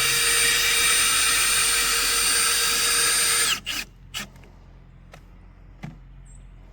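Power drill driving a screw into the log, running steadily at full speed for about three and a half seconds and then winding down. A few light clicks and knocks follow.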